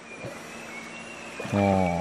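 Quiet forest background with a faint, steady high-pitched insect tone. About a second and a half in, a voice breaks in with a long held sound.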